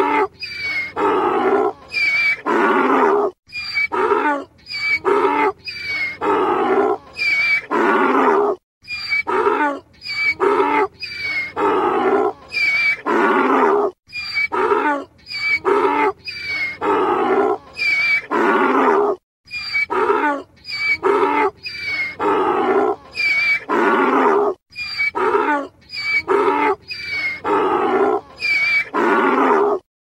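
Donkey braying over and over in hee-haw runs: short, high notes alternate with longer, lower ones. Each run breaks off in a brief gap about every five seconds.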